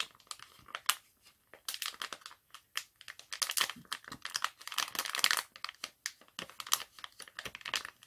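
Plastic Garnier sheet-mask sachet crinkling as it is folded and handled along its dotted fold line, an irregular run of rustles and crackles that gets denser around the middle.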